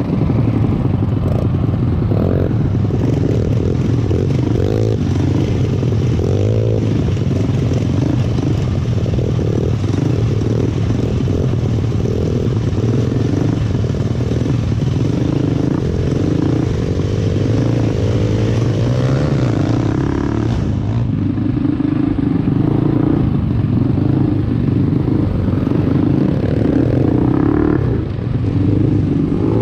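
Small off-road motorbike engine running under throttle on a rough dirt trail, its pitch rising and falling as the rider works the throttle, with rattling from the bike over the rocks. The note eases off briefly about two-thirds of the way through and again near the end.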